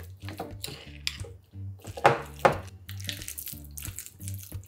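Metal spoon stirring ground meat into a thick chili-paste seasoning in a glass bowl: irregular wet squelching and scraping strokes, two louder ones about two seconds in. Soft background music runs underneath.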